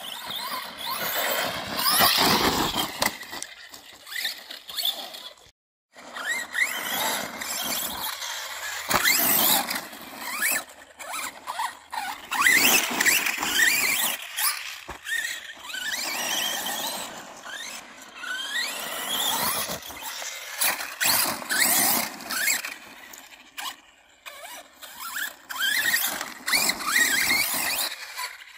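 Arrma Kraton 4S RC monster truck's brushless motor whining as it revs up and down again and again, with its tyres scrabbling over gravel and wood chips.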